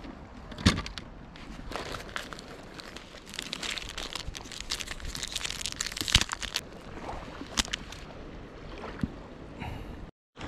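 Water splashing and lapping with scattered sharp knocks, the loudest about a second in.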